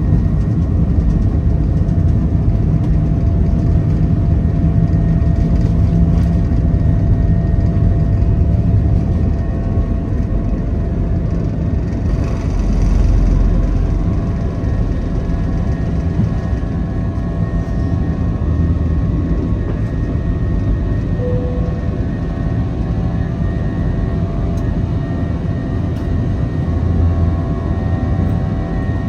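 Jet airliner cabin noise: a steady rush of engine and airflow with a deep rumble and a few faint constant hums. The rumble swells briefly a little under halfway through, and a short faint tone sounds about two-thirds of the way in.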